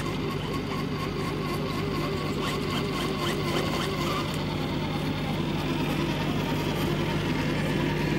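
RC scale crawler truck driving slowly over a dirt trail: a steady motor-and-gear hum with a higher whine that wavers as it moves, growing slightly louder near the end.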